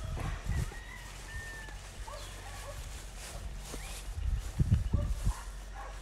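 Faint short animal calls, a few thin chirps, over low rumbling on the microphone that swells about four and a half seconds in.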